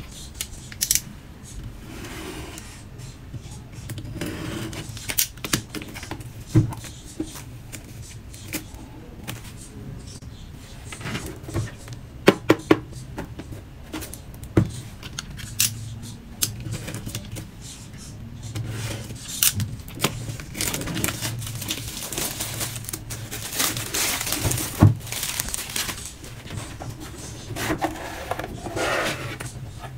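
Hands handling a cardboard box in clear plastic shrink-wrap, with sharp taps and clicks of the box and fingers against the wrap. The film crinkles and tears as it is peeled off, the crackling heaviest in the second half.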